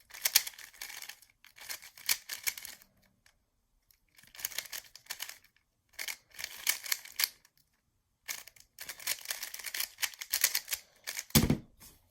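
Plastic layers of a GAN 3x3 speedcube clicking and clacking as it is turned fast during a timed solve, in quick runs of turns broken by short pauses. A single low thump comes near the end.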